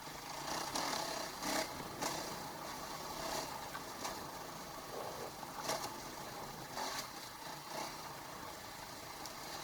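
KTM 500 EXC single-cylinder four-stroke enduro engine running at low revs on the trail, with several short knocks and clatters from the bike over the ground.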